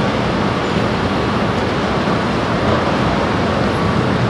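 Steady city traffic noise: a constant low rumble under an even hiss, with no distinct events.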